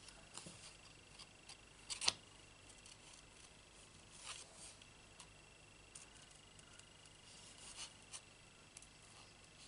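Small paper snips cutting cardstock: a few faint, scattered snips, the sharpest about two seconds in.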